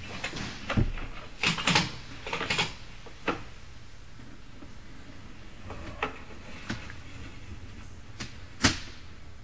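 Irregular clicks and knocks as a sewer inspection camera's push cable is fed out by hand, over a steady low hum. There is a cluster of knocks in the first three seconds, a few lighter ticks midway, and a sharp knock near the end.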